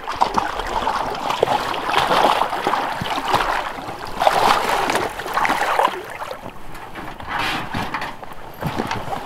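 Water sloshing and splashing in irregular surges as people wade through a river in waders and drag a shot deer through the water alongside an inflatable raft.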